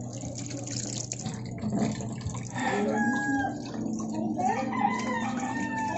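A rooster crowing from about halfway through, in long held calls, over tap water splashing onto fish slices as they are rinsed by hand.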